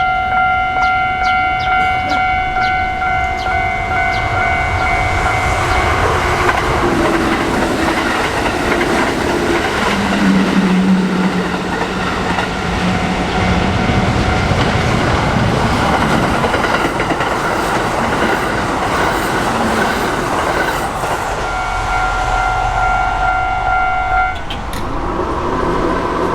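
Japanese level-crossing warning bell ringing steadily while a Kintetsu electric train passes through the crossing, its wheels clattering over the rails and drowning the bell for most of the pass, with a low held tone about ten seconds in. The bell is heard again once the train has gone and cuts off suddenly near the end.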